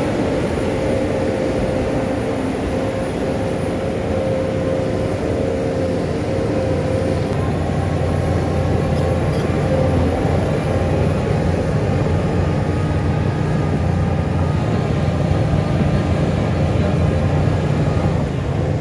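Heavy diesel engine of earthmoving machinery running steadily, its note changing slightly partway through as a higher tone fades and the low tones grow stronger.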